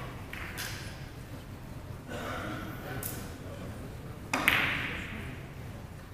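Hushed hall ambience with low murmur, and one sharp knock about four and a half seconds in that rings out and fades over about a second.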